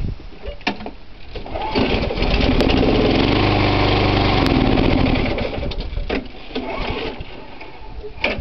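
Cold Tecumseh 6.75 hp single-cylinder mower engine pull-started: it catches and runs for about three seconds, then slows and dies out, a sign that it needs more prime. A few sharp clicks follow.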